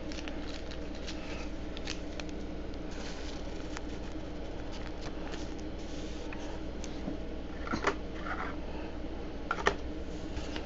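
Soft rustling and faint clicks of trading cards being handled, over a steady low hum. There are two slightly louder clicks near the end.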